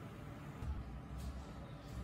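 Faint handling sounds as a Seiko watch movement is lifted out of a metal movement holder: a low bump and a couple of soft clicks about a second in and near the end.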